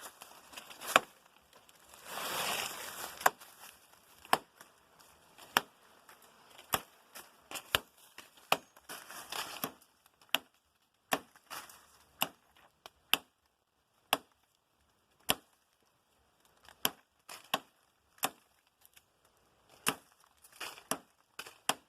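A blade chopping repeatedly into a green jeniparana (Gustavia augusta) stem being cut for a berimbau bow: sharp separate knocks, roughly one a second and irregular, with a burst of noise lasting about a second about two seconds in.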